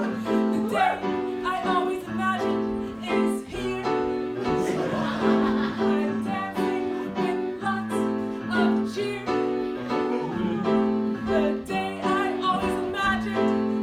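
Live music: an accompanist playing repeated chords over a bass line, with singing over it in places.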